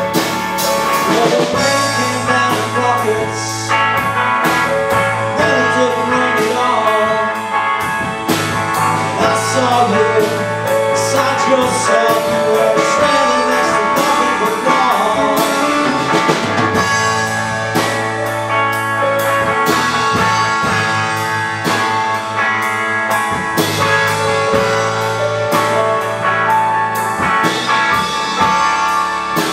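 A band playing live: hollow-body electric guitar, electric bass and drum kit, with a man singing.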